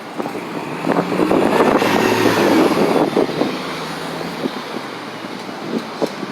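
A transit bus's engine and tyres as it drives past, growing louder to a peak about two to three seconds in and then easing off.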